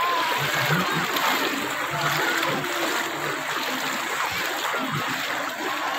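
Shallow river water splashing and flowing around bathers wading in it, with a crowd's voices and children's high calls mixed in.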